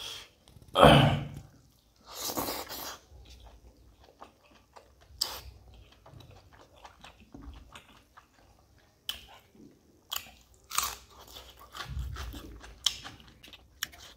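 Close-up chewing and biting of a person eating spicy mutton innards and rice by hand: irregular mouth clicks with a few louder bursts, the loudest about a second in.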